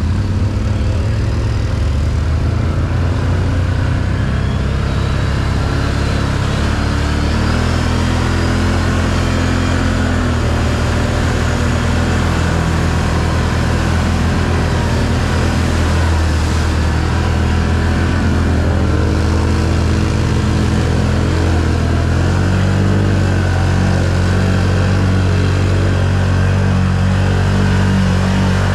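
Can-Am 1000 ATV's V-twin engine running steadily under way, its pitch shifting up and down a few times as the throttle changes.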